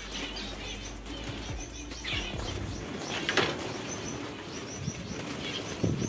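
Zebra finches giving short high chirping calls while their wings flutter as they fly about the aviary, with a louder flurry of wingbeats about three seconds in and a short thump near the end.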